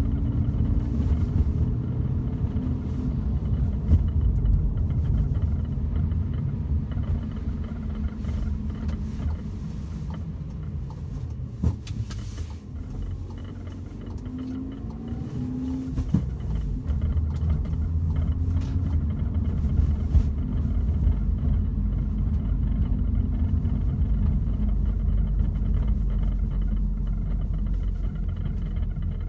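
Volkswagen Golf GTI Mk7 driving, a steady low rumble of road and engine that swells and eases, with a few short sharp knocks. These are the rattle the car is being recorded for.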